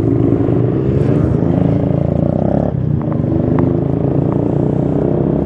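Motorcycle engine running steadily under way as the bike is ridden, heard loud from on the bike.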